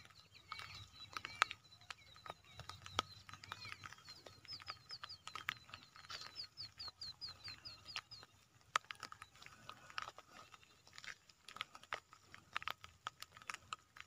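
Animal calls over frequent scattered clicks and crackles. About halfway through comes a quick run of a dozen or so short, high, falling notes.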